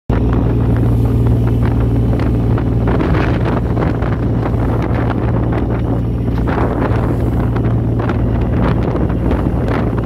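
Fishing boat's engine running steadily under way, a constant low hum, with wind buffeting the microphone and water rushing along the hull.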